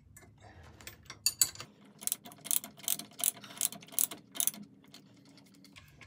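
Steel spanner clicking and clinking on the clamp bolts of a split shaft coupling as they are tightened. A few scattered clicks at first, then from about two seconds in an even run of sharp metal clicks, about three a second, stopping near the middle of the second half.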